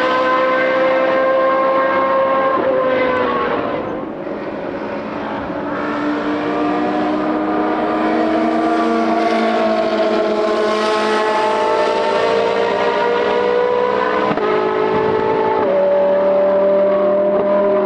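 Historic racing-car engines at high revs, several heard at once as cars pass, their pitch rising and falling with gear changes and speed. The engine note jumps abruptly twice near the end.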